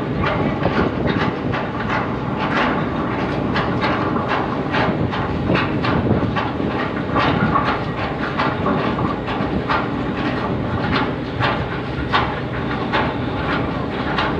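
Ship's anchor windlass heaving up the anchor chain, the steel links clanking in a regular rhythm, a few times a second, over a steady low hum of machinery.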